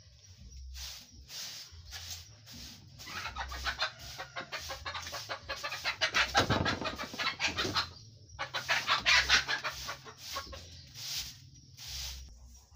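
Short bundled-grass broom sweeping a dirt floor, brushing debris into a plastic dustpan: a run of quick scratchy strokes, with a short pause about eight seconds in.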